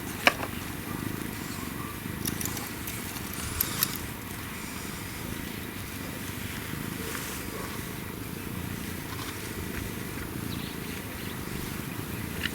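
African wildcat kitten purring steadily, a rapid, fluttering vibrato. A few sharp clicks stand out, the loudest about a third of a second in and two more a little after three and a half seconds.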